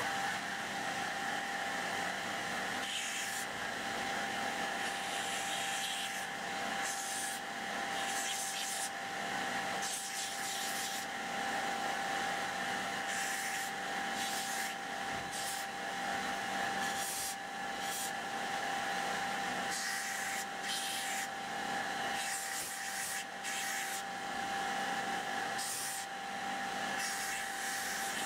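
Belt grinder running steadily with a constant hum. A padauk-wood knife handle is pressed against the moving sanding belt again and again, each pass adding a hissing rasp.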